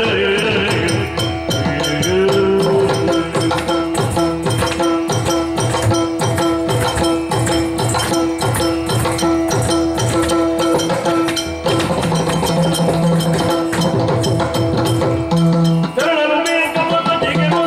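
Yakshagana dance music: chende and maddale drums playing a fast, dense rhythm over a steady drone. Singing trails off shortly after the start and comes back near the end.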